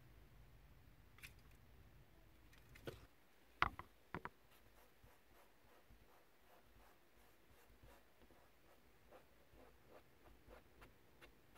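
Quiet handling sounds: a few small clicks and taps, the loudest about three and a half seconds in, then faint light ticks as the rear-view mirror's mounting button is handled against the windshield glass.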